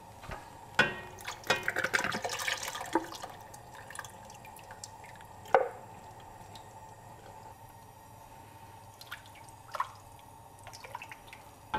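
Coconut milk pouring and dripping from a tin can into a cast-iron pot of curry sauce, with clinks and scrapes from the can and a wooden spoon against the pot, busiest in the first few seconds. One sharp knock comes about halfway through.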